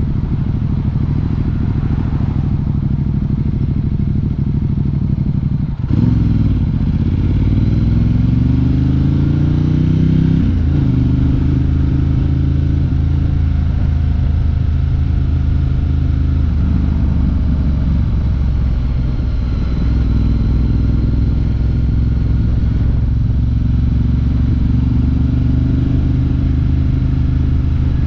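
Ducati Diavel 1260 S V-twin running, then about six seconds in its revs climb smoothly for about four seconds as the bike accelerates. The rise breaks off near the ten-second mark, and the engine then runs at fairly steady revs.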